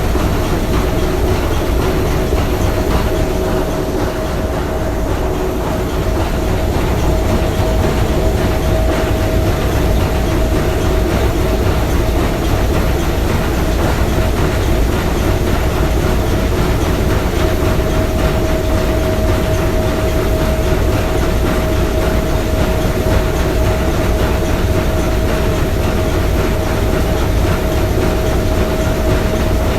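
Three-cylinder triple-expansion marine steam engine running steadily, a dense mechanical clatter with a steady hum and whine over it.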